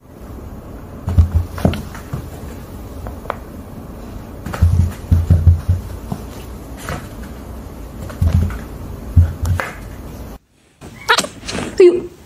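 Several short low thumps and a few sharp clicks from a box of young kittens, over a steady background hiss. After a brief silent gap, a kitten gives a few short, high mews near the end.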